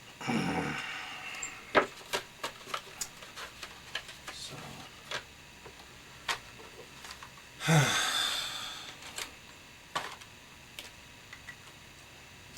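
A person sighing twice, about a second in and again near eight seconds, each sigh falling in pitch, amid scattered small clicks and crackles of paper being handled.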